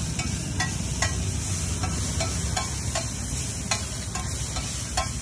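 Chicken pieces, sliced onions and capsicum sizzling with a steady hiss on a large flat metal griddle. A metal spatula stirs and scrapes through them, clicking against the plate again and again.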